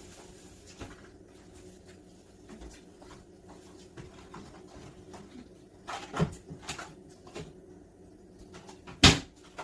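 Scattered soft clicks and knocks of a food container being fetched and handled, with one sharp, louder knock near the end.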